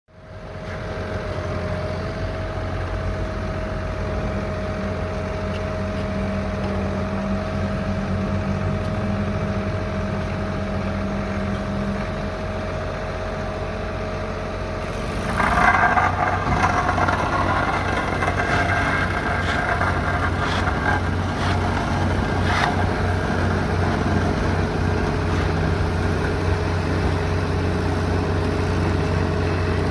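Engine of asphalt paving machinery running steadily. About fifteen seconds in, a louder rattling hiss joins it and carries on, with scattered clicks.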